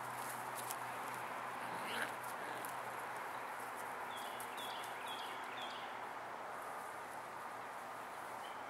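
Faint outdoor background while puppies play on grass, with one brief puppy yelp about two seconds in. From about four seconds in, a bird chirps, repeating a short high call about twice a second.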